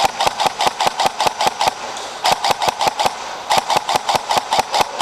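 Airsoft electric rifle (AEG) firing rapid single shots, about six a second, in four strings with short pauses between, a whirring hum under each string.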